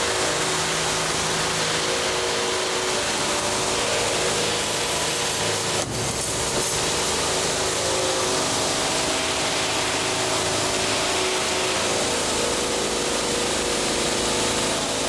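CNC spring-forming machine running, a steady mechanical whir with shifting motor tones, broken by a brief click about six seconds in.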